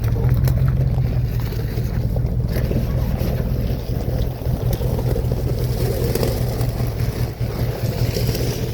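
Truck engine running at a low steady drone while crawling a rocky dirt trail, with tyre and gravel noise and scattered small knocks and rattles.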